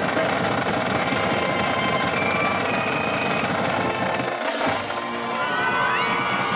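High school marching band playing in the stands, with brass, flutes and a drumline of snares and bass drums. About four and a half seconds in the low end drops out briefly under a short crash, and rising runs follow.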